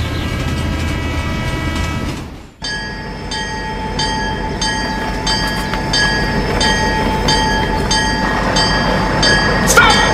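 Train sound with a level-crossing bell ringing in a steady rhythm of about three dings a second over rumbling rail noise. It starts after a held tone cuts off about two and a half seconds in, and a short swooping horn-like tone comes near the end.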